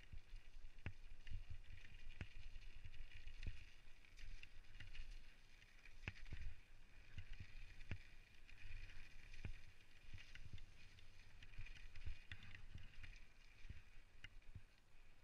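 Specialized Stumpjumper mountain bike rolling fast down a rocky gravel trail: a continuous low rumble from the tyres over the ground, with frequent sharp knocks and rattles as the bike hits stones.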